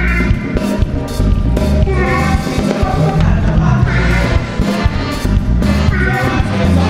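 Live soca played by a big band: saxophones and trumpets play phrases over drum kit and bass, with a male singer.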